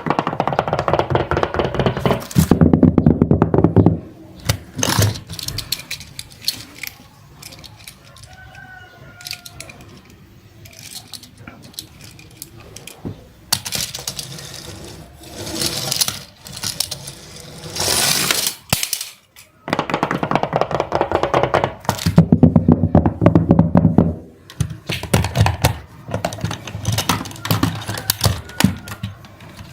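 Small hard objects clattering and knocking, with louder stretches of rapid clatter near the start and again about two-thirds of the way through.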